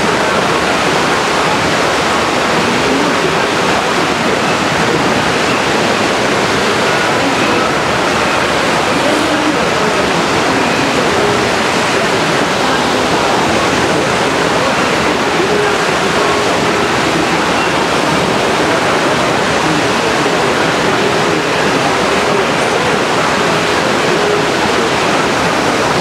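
Steady, loud rush of water pouring through a whitewater raft ride's rapids and waterfalls, with faint voices underneath.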